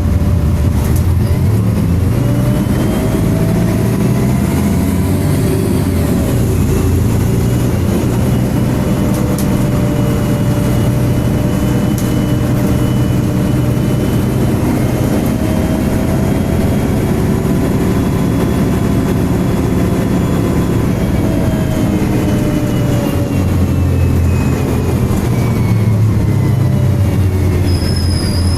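MAN Enviro300 single-deck bus running, its engine rumbling under the whine of the engine cooling fan. The whine climbs slowly in pitch through the middle and falls away again near the end.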